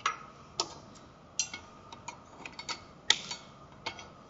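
About a dozen sharp, irregular clicks and light clinks of metal kitchenware being handled: a spoon against dishes and a cast-iron skillet set on the stove.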